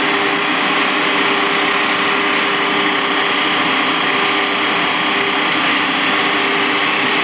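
Electric stand mixer running steadily, its wire whisk beating egg whites in a stainless steel bowl while caster sugar is added for meringue.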